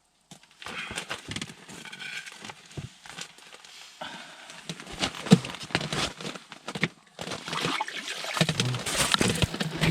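Slush and water splashing in an ice-fishing hole, with crackling, scraping clicks and line-handling noise as a hooked burbot is hauled up through the ice. The sound cuts out briefly at the start and again about two-thirds of the way through.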